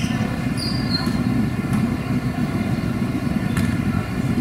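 Basketball gym ambience during a free throw setup: a steady low rumble, with a brief high squeak about half a second in and a few faint knocks.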